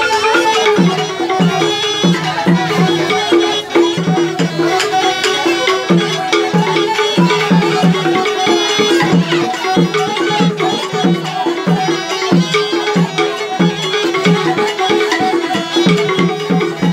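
Live Batak Toba instrumental music: two small bamboo wind instruments play the melody together over a wooden xylophone (garantung) struck with two mallets, with a regular low beat pulsing underneath.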